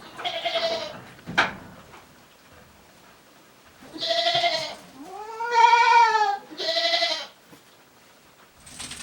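Goats bleating: one bleat near the start, then three in quick succession, the longest in the middle rising and falling in pitch. A short knock sounds about a second and a half in.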